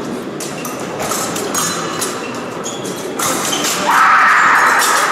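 Fencing bout in a hall: sharp clicks and knocks of blades and footwork on the piste, then about four seconds in the electric scoring machine starts a loud steady buzz signalling a registered touch.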